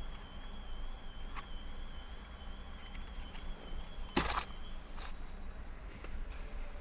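Food-handling noises while eating a takeaway chicken wrap: a few light clicks and one brief crinkle of the wrap about four seconds in, over a low steady hum.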